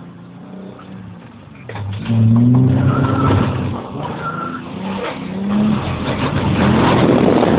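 Nissan 300ZX's V6 engine revving hard from inside the cabin, its pitch climbing about two seconds in, with two short high squeals and a rush of tyre and road noise on wet tarmac building toward the end.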